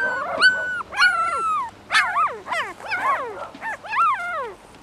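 A litter of 19-day-old puppies whining and crying: a run of high, squeaky cries, most of them falling in pitch, with several pups crying over one another from about two seconds in.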